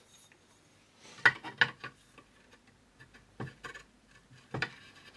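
Sharp clicks and knocks of the microscope stand's aluminium pillar being fitted into its metal clamp on the base: three close together about a second in, two more around three and a half seconds and a last one near the end.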